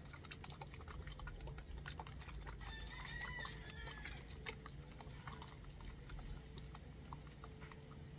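Chickens clucking faintly in the background, with a pitched call about three seconds in, over a low steady hum and light small ticks.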